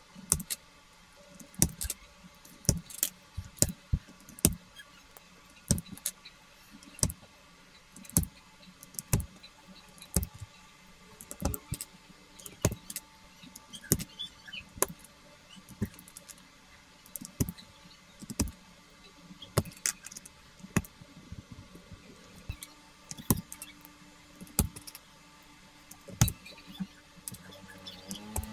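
Sharp plastic clicks and clacks, irregular and roughly one a second, some in quick pairs or clusters, from mechanical keyboard parts being handled and fitted back together.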